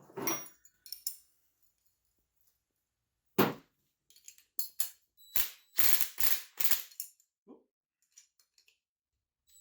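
A series of sharp metal clacks and knocks from small hood-shock hardware (ball studs, brackets, nuts) being handled and fitted: about ten irregular strokes, the loudest about three and a half seconds in and a quick cluster a couple of seconds later.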